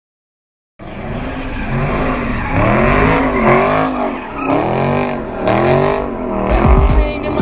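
A car engine revving up and down again and again, its pitch rising and falling in repeated sweeps. It cuts in abruptly about a second in, and near the end there is a louder low rumble with crackling.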